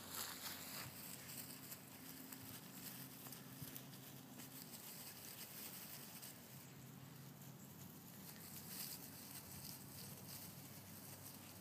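Faint pattering and rustling of footsteps on grass, with a low steady hum underneath that fades about halfway through.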